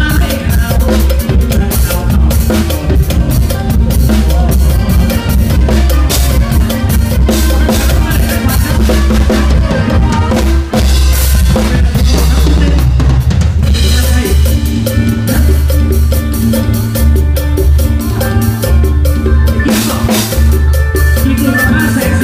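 Drum kit played live in a mor lam sing band, with dense snare, tom, kick and cymbal strokes loud over the band's bass line.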